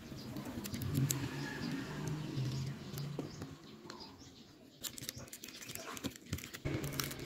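Thin plastic film and tape on a phone's flex cables crinkling and rustling under the fingers, with small scratches and clicks that come thicker in the second half. A low hum runs under the first three seconds or so.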